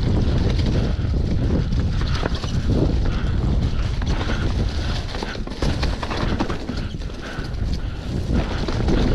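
Mountain bike riding fast down a rough dirt downhill trail, heard through a GoPro on the rider or bike: wind rumbling on the microphone, with a constant run of knocks and rattles as the bike goes over roots and rocks.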